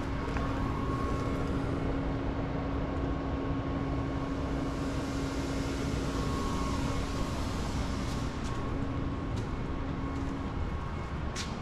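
Steady hum and rush of a shop fan running, with a constant low tone. There is one short click near the end.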